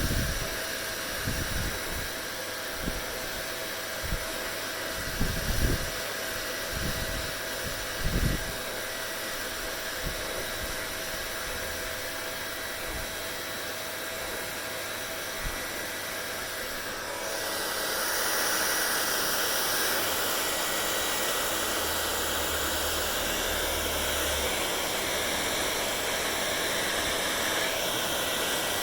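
Hand-held hair dryer running steadily, a constant blowing hiss with a faint whine in it. Some low thumps over the first several seconds, and about two-thirds of the way through the sound steps up a little louder and brighter and stays there.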